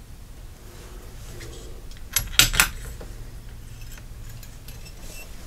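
A bench-top hand press with a seating die is worked by its lever to seat a bullet into a rifle cartridge case, giving a quick cluster of metallic clicks and clinks about two seconds in and a lighter click just after.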